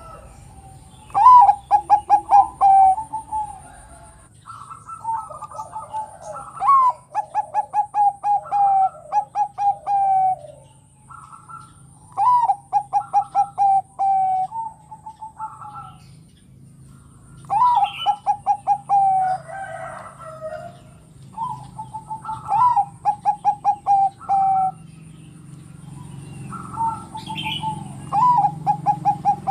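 Bangkok-bred zebra dove (perkutut) cooing: repeated phrases of rapid staccato coos, each a quick run of notes that sinks slightly at the end, separated by short pauses.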